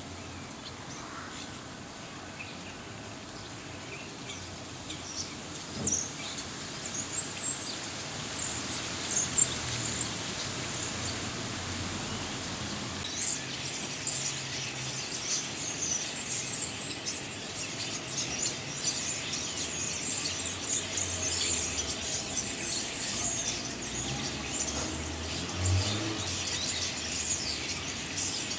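A flock of common starlings, juveniles and adults, chattering in a tree: many short, high chirps, scattered at first and becoming a busy, continuous chatter from about halfway.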